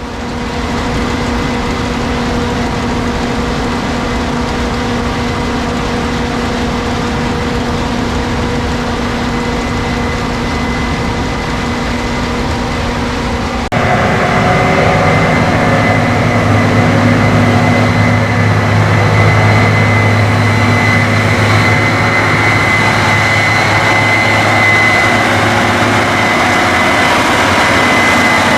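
Case IH 8250 combine running steadily while harvesting wheat: a dense machine drone with a steady high whine over a lower hum. About halfway through, the sound changes abruptly and gets louder, and a deeper hum comes up a couple of seconds later.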